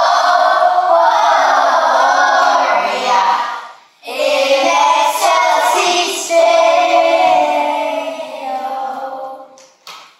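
A group of young children singing a song together, with a short break about four seconds in; the singing trails off near the end.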